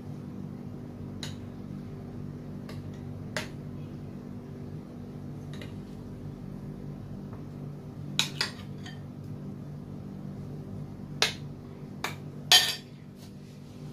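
A metal spoon clinking and scraping against glass dessert cups and a glass bowl as thick custard is spooned in. There are a few scattered clinks, the loudest near the end, over a steady low hum.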